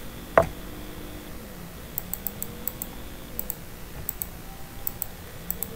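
Computer keyboard clicks: one louder knock about half a second in, then several quick pairs of light clicks spaced roughly half a second to a second apart, over a faint steady room hum.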